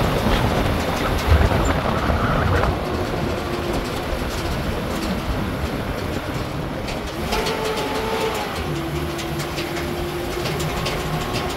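Truck running along a rough dirt road, its engine droning while the body rattles and clanks over the bumps.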